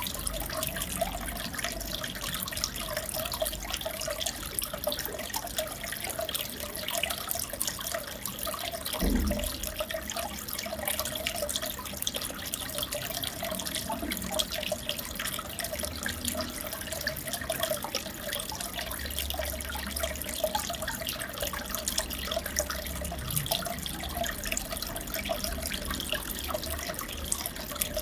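Aquarium water bubbling and trickling steadily, with a dense patter of tiny splashes. A single dull thump about nine seconds in.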